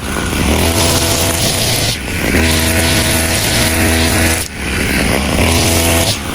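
Two-stroke brush cutter engine running at a steady high speed, heard in short segments that cut off abruptly and start again every couple of seconds.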